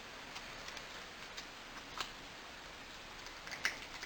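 Faint scratchy ticks of a strip of fine-grit sandpaper worked between a space heater thermostat's contact points, sanding both contact faces clean after they had fused together. Scattered single ticks, with a quick cluster near the end.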